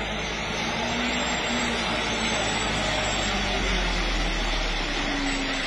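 Light truck's engine running as it comes up round a bend toward the camera, under a steady rushing noise; the low rumble swells about halfway through as it draws near.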